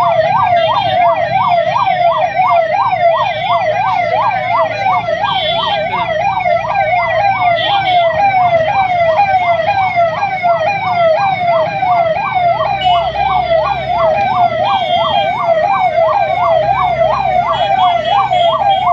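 Ambulance siren on a fast yelp, rising and falling about three times a second without a break, while stuck in a traffic jam. Short high horn toots come and go over it, with the low hum of idling traffic underneath.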